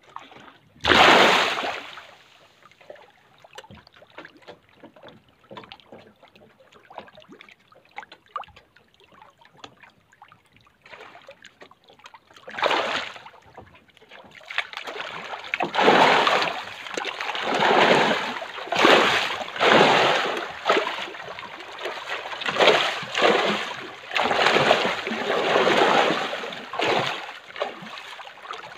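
Crowded fish in a floating farm cage splashing and churning at the water surface: one big splash about a second in, scattered small splashes and crackling after it, then repeated surges of splashing every couple of seconds through the second half.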